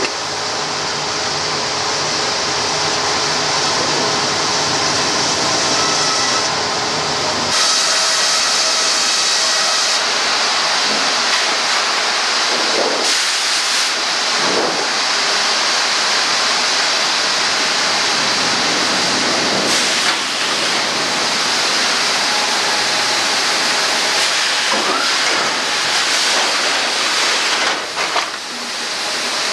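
Sawmill machinery running: a loud, steady hissing noise with faint whines under it, the sound changing about seven and a half seconds in.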